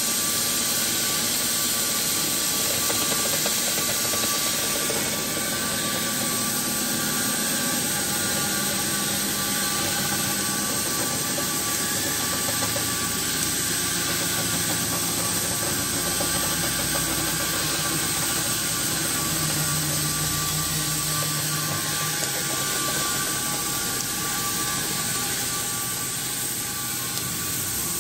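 CNC cutting torch burning circles out of thick steel plate: the cutting jet hisses steadily, with a faint steady hum underneath.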